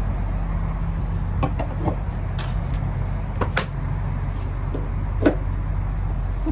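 Freightliner semi truck's diesel engine idling steadily, with a few sharp metal clanks and clicks as the trailer air hoses and glad hands are disconnected and hung up on the back of the cab.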